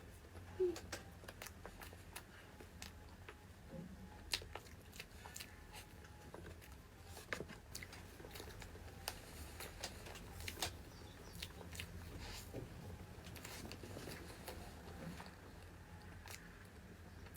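Faint eating sounds: food being bitten and chewed, with irregular crunches and clicks and a few sharper ones scattered throughout.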